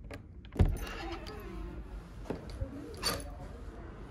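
Light handling sounds: a soft thump about half a second in, then a few small clicks and clinks, with a faint voice in the background.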